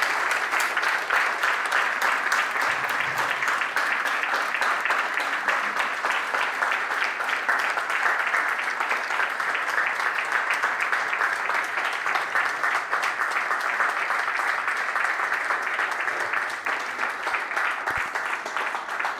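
Audience applauding: steady, dense clapping from a roomful of people, thinning a little near the end.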